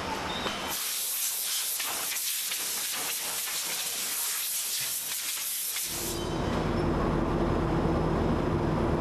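Factory noise: a steady high hiss for about five seconds, then an abrupt switch to a steady low machine hum with a constant tone.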